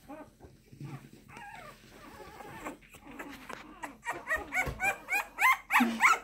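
Two-week-old bully puppy crying in short, high squeals, several a second. It starts faint and grows louder from about four seconds in: distress cries of a young puppy being held and handled.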